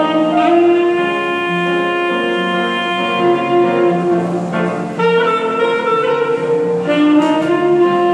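Tenor saxophone playing a slow melody in long held notes over grand piano accompaniment, with a short breath between phrases about halfway through and again near the end.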